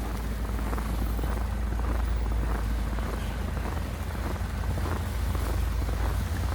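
Blizzard wind buffeting the microphone as a steady low rumble, with the faint, regular crunch of boots walking through snow.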